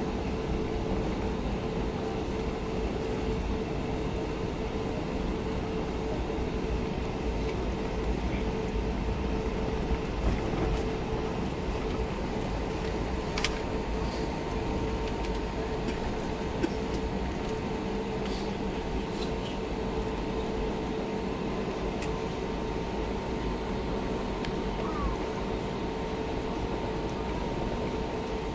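Steady cabin rumble and hum of an airliner on the ground before takeoff, with its engines and air systems running. A few faint clicks stand out from the rumble.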